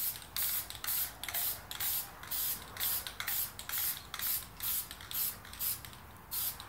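Aerosol spray-paint can hissing in quick short bursts, about three a second, coating a steel drum lid, with a brief pause near the end.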